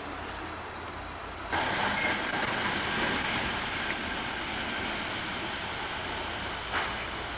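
Railway station ambience with the steady noise of electric trains, jumping louder about one and a half seconds in, with a short knock near the end.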